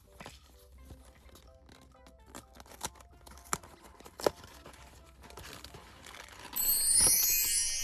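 A candy-toy cardboard box handled with scattered taps and knocks, then about six and a half seconds in, a loud crinkling, tearing sound as the packaging is torn open, over quiet background music.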